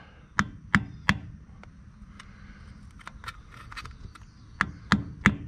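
Hammer striking a screwdriver held against the tab washer on a truck's axle nut, to start bending the tab: a string of sharp metal taps. There are three firm blows early, lighter taps through the middle and a louder group of three near the end.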